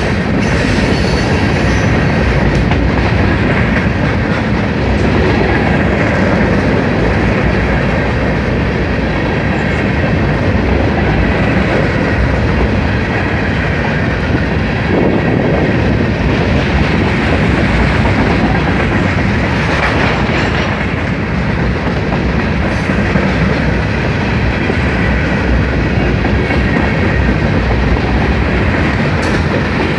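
Cars of a mixed manifest freight train rolling past close by: a loud, steady rumble of steel wheels running on the rails.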